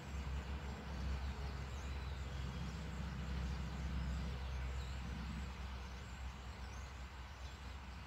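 A steady low rumble like a distant engine running, easing a little after about five seconds, with faint, thin bird chirps high above it.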